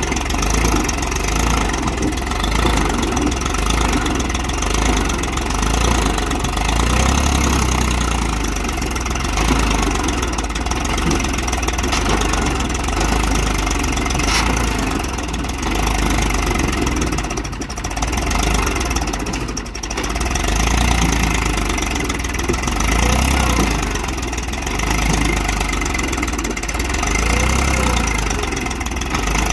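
Eicher 380 tractor's diesel engine running steadily under load, pulling a loaded trolley through sand.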